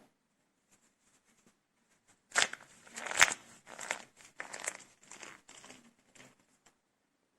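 Dried soap cups made with starch being broken and crushed by hand: a loud crunch about two and a half seconds in, a sharp crack just after, then a run of crumbling crackles that die away.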